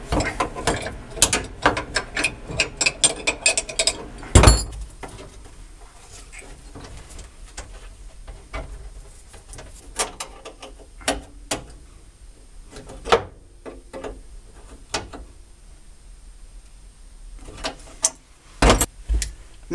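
Hand flaring tool being worked on a brake line to form a bubble flare: rapid metal clicking for about the first four seconds, a sharp knock, then scattered clicks and a couple of knocks near the end.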